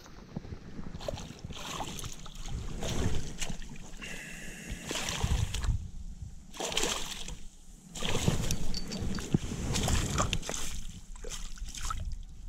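Footsteps swishing through long grass and a jacket rubbing against the microphone, with irregular knocks and scrapes from handling a landing net and rod.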